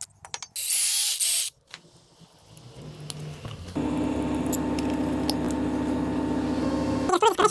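A short burst of spray hiss, then a steady electric machine hum that runs for about three seconds and cuts off suddenly near the end.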